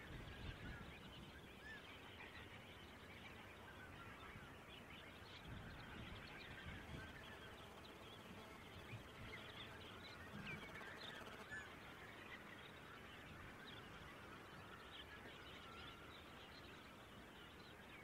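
Faint, continuous chorus of a large flock of coastal waterbirds, many overlapping calls blending together, over a low rumble.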